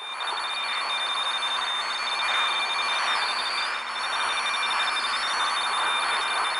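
Shortwave radio band noise: a steady rush of static with several steady high whistling beat tones, and one higher whistle that swoops down and back up twice.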